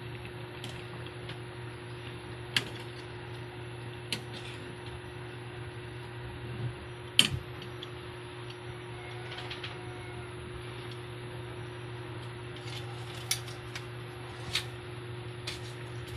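A steady low hum from a stove with a pan of chicken breasts simmering in broth, and a few sharp clicks and taps of metal on the pan.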